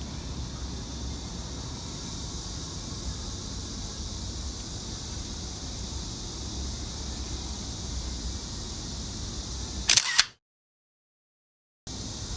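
Steady outdoor ambience with a low rumble and a high hiss. About ten seconds in, a camera shutter clicks twice in quick succession, and then the sound cuts out completely for about a second and a half before the ambience returns.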